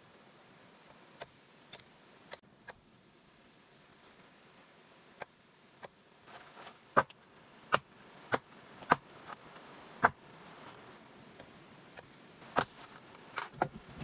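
A blade chopping at an upright wooden pole as it is trimmed, each stroke a sharp knock. Scattered light taps at first, then a run of louder strokes roughly every half second to second through the second half.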